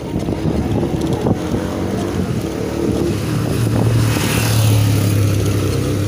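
Wind buffeting the microphone on a moving bicycle, with a passing motorcycle's engine drone growing louder from about halfway.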